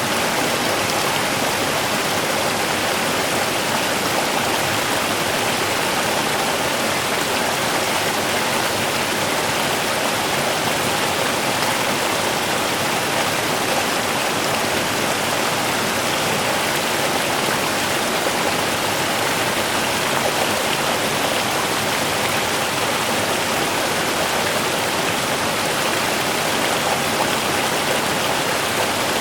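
Running water rushing in a steady, unbroken wash, like a stream or waterfall.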